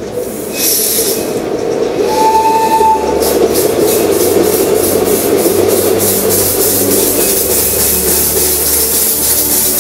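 Hand-built miniature steam locomotive hissing loudly with escaping steam, a short whistle note about two seconds in, then a regular beat of exhaust puffs, about four a second, as it runs.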